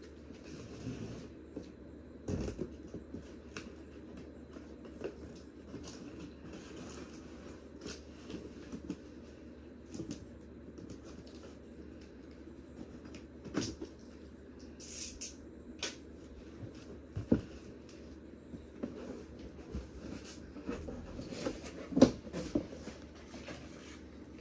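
A large cardboard box being opened by hand: scattered rubs, scrapes and taps on the cardboard as the top flap is worked open. A few sharper knocks stand out, the loudest about 22 seconds in.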